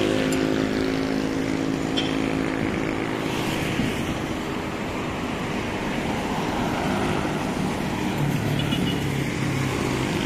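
Road traffic passing close by on a busy highway: tyre and engine noise of passing cars, with one vehicle's engine hum fading over the first few seconds and another low engine note coming in near the end.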